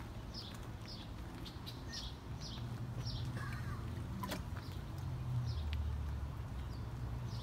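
A small bird chirping outdoors: short, high, downward-sliding chirps repeated about once or twice a second, over a steady low rumble.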